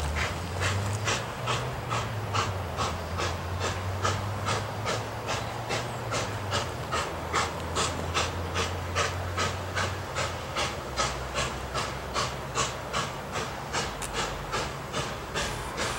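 Southern Pacific 2472, a 1921 Baldwin 4-6-2 Pacific steam locomotive, working under load with its exhaust chuffing in an even beat of about three chuffs a second.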